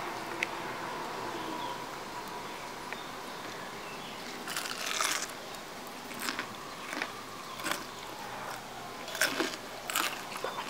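Crisp crunching and chewing of breadcrumb-coated fried oyster mushrooms being bitten into, a run of short crunches starting about four seconds in.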